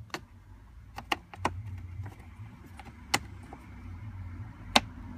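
Sharp plastic clicks and knocks from a 2005 Mitsubishi Shogun's glove compartment being pushed and worked at its side stop, a handful of them, the loudest about three seconds in and near the end, over a low steady hum.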